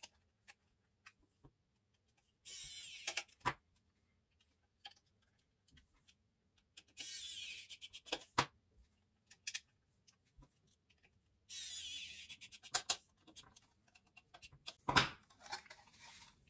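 Three small screws driven one after another into the plastic housing of an automatic soap dispenser with a small precision screwdriver. Each is a burst of about a second, with light handling clicks in between and a louder knock of the plastic housing near the end.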